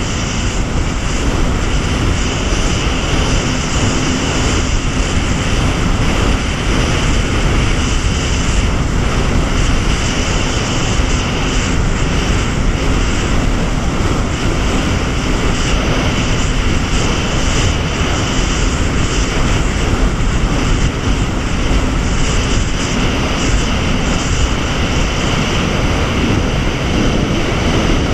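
Jet ski running steadily at speed across the water: a constant engine drone mixed with the rush of water and spray.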